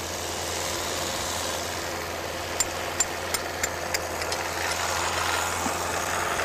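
Car engine running steadily while a tool is struck into its spin-on oil filter, giving a quick series of sharp metallic taps about two and a half seconds in; after that a hiss rises as pressurised oil sprays out of the hole.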